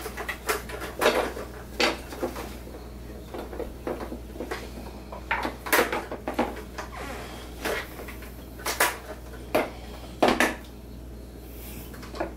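Irregular clicks and knocks of babies' toys on plastic high-chair trays: wooden puzzle pieces being tapped and set down, and the plastic buttons of a pop-up toy being pressed.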